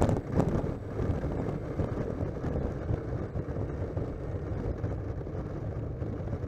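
RC model plane touching down on an asphalt runway: a jolt at the start, then its wheels rumbling over the rough surface as it rolls out, with wind buffeting the onboard microphone.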